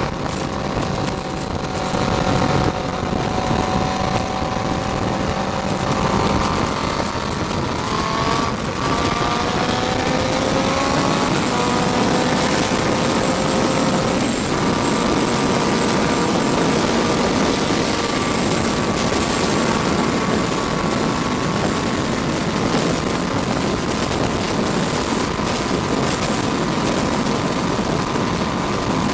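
Honda CBR600F2 inline-four engine under way on a moving motorcycle, heard through heavy wind rush on the microphone. About a quarter of the way in, the engine pitch climbs as the bike accelerates, drops at an upshift about halfway through, and then holds steady at cruising speed.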